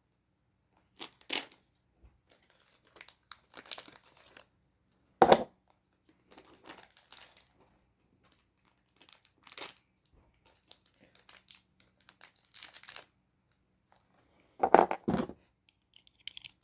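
Packaging of a Beyblade booster being crinkled and rustled in hand, in irregular bursts of crackling, loudest about five seconds in and again near the end.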